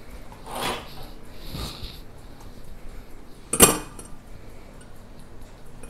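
A hot Bundt cake pan being handled and turned over: two soft brushing shuffles, then one sharp clatter of the pan set down hard about three and a half seconds in.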